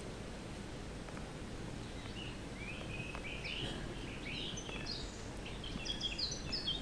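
A small bird singing in a run of short, quick chirping notes that begins about two seconds in and grows busier towards the end, over a low steady outdoor background hiss.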